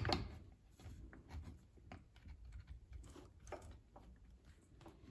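Faint, scattered clicks and taps of steel parts in a Ford 6F55 front differential as the limited-slip clutch plate and gears are wiggled by hand to line them up.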